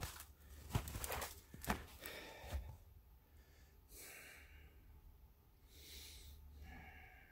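A man breathing out a couple of times close to the microphone, with a few light knocks from handling the camera in the first two seconds.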